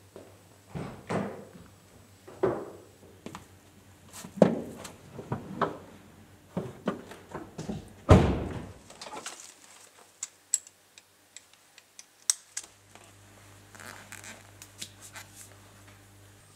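A series of knocks and thunks from a race car's door and cockpit, the heaviest about eight seconds in, followed by a few sharp clicks, as a driver gets into the car.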